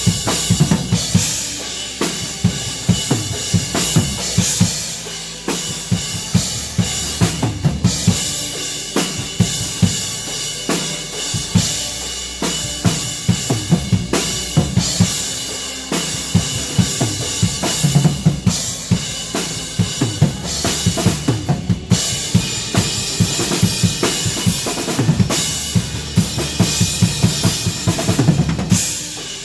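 Drum kit played steadily through an upbeat praise song, with bass drum and snare hits over continuous cymbal wash.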